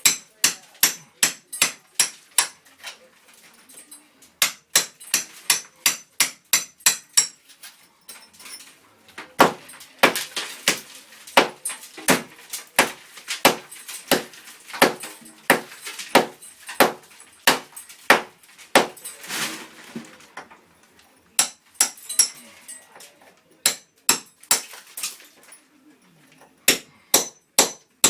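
Hammer blows chipping away at a cinder block wall, about three strikes a second, in runs broken by short pauses, with one long run in the middle.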